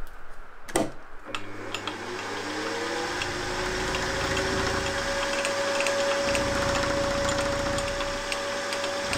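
Milling machine spindle with a 6 mm ball-nose end mill cutting 6082-T6 aluminium. A couple of clicks come in the first second, then the motor whine rises in pitch for a couple of seconds and holds steady as the cut goes on.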